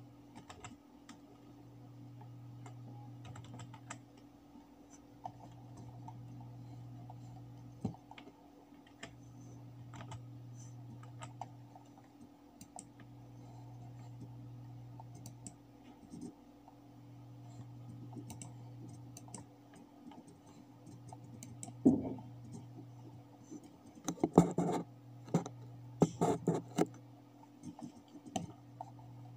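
Computer keyboard typing and mouse clicks: scattered keystrokes and clicks, then a quick run of louder keystrokes near the end, over a faint low hum that swells and fades every couple of seconds.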